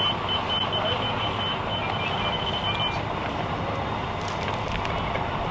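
Steady city traffic noise from vehicles on the road. A rapid run of short, high-pitched electronic beeps stops a little under three seconds in.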